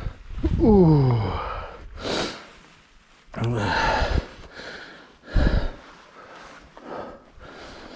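A mountain biker breathing hard with gasps and two drawn-out falling groans, one about half a second in and another at around three and a half seconds.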